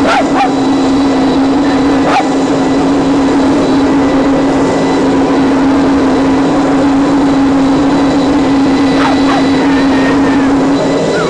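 A dog gives a few short barks or yips, two near the start and two near the end, over a steady hum and hiss.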